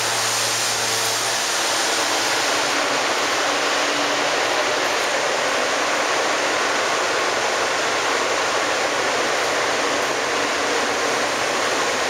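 Steady rushing hiss around a stopped New York subway R160 train, heard from the platform and then inside the car. A low hum from the train fades out in the first second and a half.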